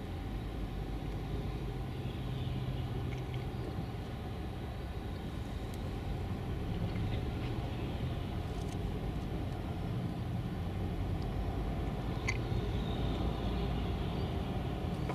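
Heavy-haulage road convoy moving slowly: the prime-mover truck and its multi-axle trailer carrying a railcar body, with an escort van. A steady low engine and tyre rumble.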